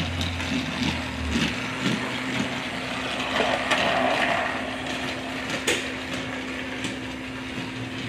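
Motorized toy Thomas engine (a TrackMaster-style Real Steam Thomas) running along plastic track, with a steady motor hum and the rattle of its wheels on the track. A sharp click sounds a little before six seconds in.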